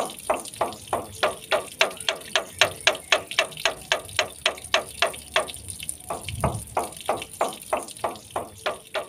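Black-winged myna (jalak putih) giving a long run of short, harsh repeated notes, about four a second and very evenly spaced, over a steady high hiss. A soft low thud comes about six and a half seconds in.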